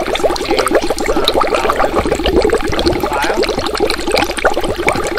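Water running or bubbling steadily, a continuous trickling sound.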